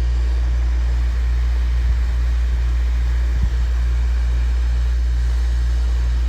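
Hot air rework station's blower running with a steady low hum and a faint regular pulsing about twice a second while desoldering capacitors, with one soft knock about halfway through.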